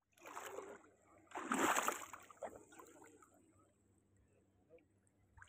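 Water splashing, with a loud splash about one and a half seconds in and a smaller one just before it, then fainter sloshing.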